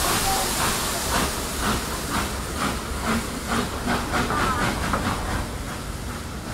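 The three-cylinder A1 Pacific steam locomotive 60163 Tornado is working slowly past, with the exhaust chuffing in regular beats about two a second over a steady steam hiss.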